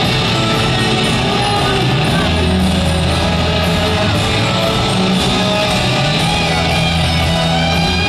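Rock band playing live at full volume, heard from the crowd through a stadium PA: electric guitars, bass and drums with a bass line moving between notes.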